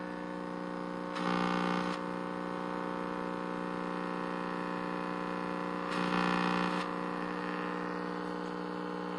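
Steady electrical hum with a buzzy stack of overtones from the loudspeaker of a Philips R17T530 hybrid valve television. Two short bursts of louder hiss come through, about a second in and again about six seconds in.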